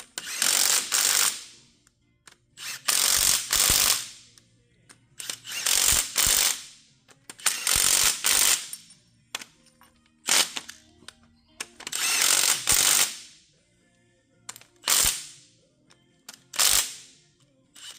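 Ratchet wrench clicking in repeated strokes, about one every two seconds, as it runs bolts down on a bulldozer's steering cover.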